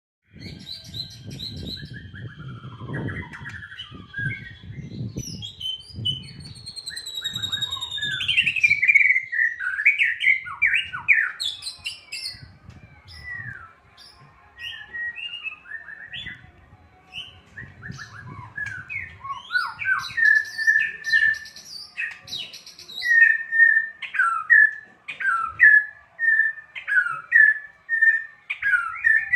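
White-rumped shama (murai batu) singing a varied song of clear whistles and pitch glides, with a long falling whistle about eight seconds in and a fast run of short repeated notes in the last third. A low rumbling noise sits under the song for the first nine seconds or so.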